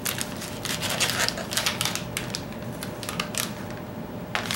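Plastic bait packaging crinkling and crackling in the hands as a soft-plastic tube bait is pulled out of its bag: an irregular run of sharp crackles, thickest in the first three seconds, with one more near the end.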